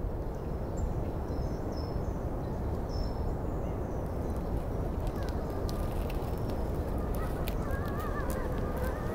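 Night-time outdoor ambience: a steady rushing noise with a few faint high chirps early on. From about halfway in, several wavering, drawn-out animal calls rise over it.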